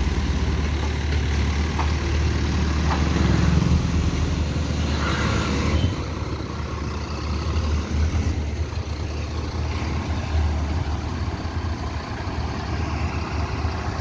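Heavy dump truck's diesel engine running with a steady low rumble, somewhat louder for the first six seconds and then settling a little quieter.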